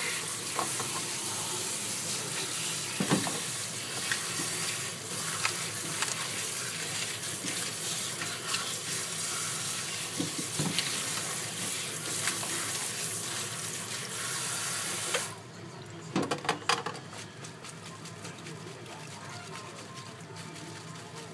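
Kitchen tap water running into a plastic colander of lettuce and sliced onion in a stainless steel sink while a hand stirs the leaves. The water stops suddenly about fifteen seconds in, followed by a few knocks and rattles.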